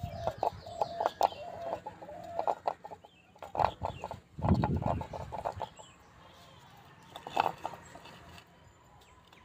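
Chickens clucking in short repeated calls, mixed with scattered clicks and a low thump about four and a half seconds in. The calls thin out over the last few seconds.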